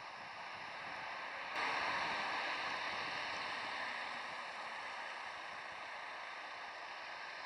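Road traffic noise: the hiss of a car's tyres on asphalt as it drives past close by. The hiss rises suddenly about a second and a half in and then slowly fades.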